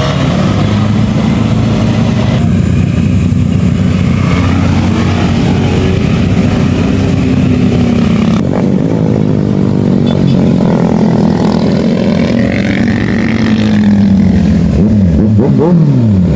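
Motorcycles riding past one after another, engines revving, their pitch sliding down as each goes by. Near the end several pass in quick succession.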